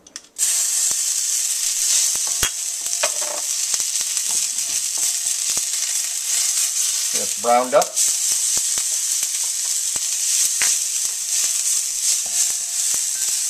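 Ginger and garlic dropped into smoking-hot oil in a wok: a loud sizzle starts suddenly about half a second in and carries on steadily, with scattered light clicks.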